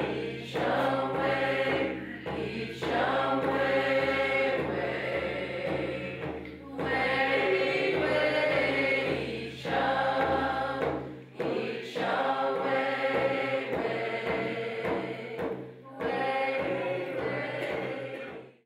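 A group of voices chanting together in long sustained phrases of a few seconds each, with short breaks between them, over a steady low drone. It cuts off suddenly near the end.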